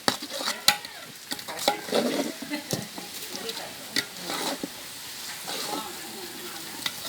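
Ladle stirring and scraping in a pan of frying food, with irregular sharp clinks against the pan over a steady sizzle.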